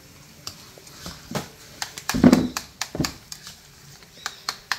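Kitchen utensils clicking and knocking on a bowl and board while avocado is prepared for guacamole: a run of short, sharp taps, with one louder, heavier sound lasting about half a second a little past two seconds in.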